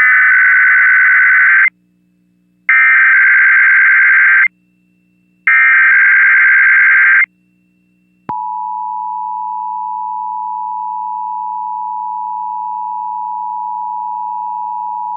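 Emergency Alert System test: three bursts of the SAME digital header, a harsh modem-like warble, each about two seconds long with short silences between. About eight seconds in, the EAS two-tone attention signal (853 and 960 Hz together) starts and holds steady.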